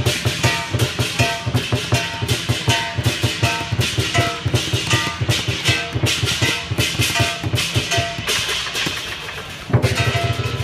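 Fast Chinese dragon-dance percussion music: a quick, steady drumbeat with crashing cymbal strokes and ringing metal tones over it. The drumming thins out briefly and comes back loud near the end.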